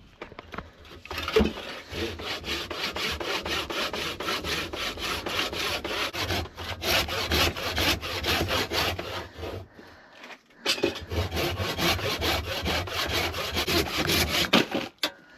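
Hand saw ripping lengthwise through a cherry log clamped in a vise, in rapid, even strokes. It pauses briefly about ten seconds in, then resumes and finishes the cut.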